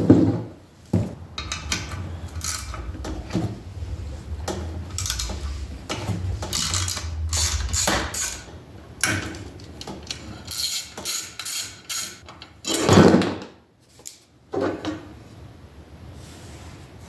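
Hand tools working on a small single-cylinder Predator 224cc engine during teardown: irregular metal clicks, clinks and knocks as fasteners and parts come off, with a quick run of clicks a little past halfway and a louder knock soon after.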